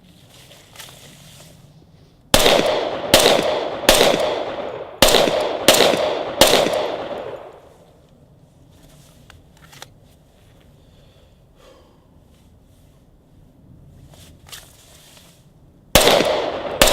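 Glock 21 Gen 4 .45 ACP pistol firing six shots in quick succession, each with a ringing tail, then a pause and one more shot near the end.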